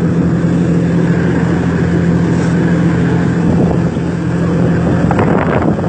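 A boat's engine droning steadily under the rush of wind and water while under way; voices start near the end.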